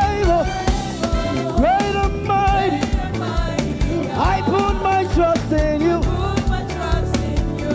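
Live gospel praise music: a band with drum kit and bass playing an upbeat groove, with singing voices gliding over it.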